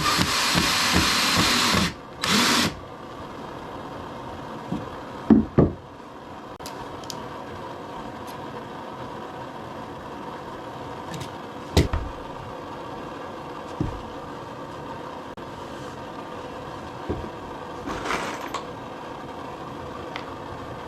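A power drill runs and stops about two seconds in, then gives one short burst, as screws are driven while the table legs are assembled. After that come a few scattered knocks of wood pieces being handled, two of them loud at about five seconds and one near twelve seconds.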